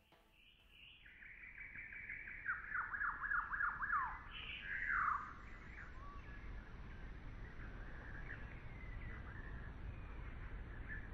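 Forest songbird singing: a rapid run of short descending notes starting about a second in, ending in a louder note that slides downward around five seconds in, then fainter scattered chirps over a faint low rumble.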